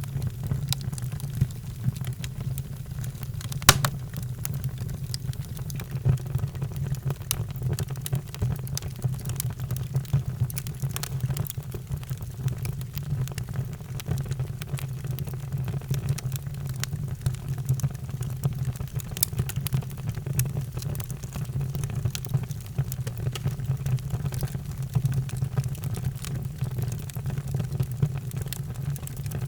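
Wood fire in a fireplace crackling, with frequent sharp pops and one louder crack about four seconds in, over a steady low rumble.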